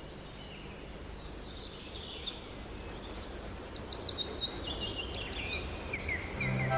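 Small songbirds chirping and singing in woodland: short quick notes, sparse at first and busier from about halfway through.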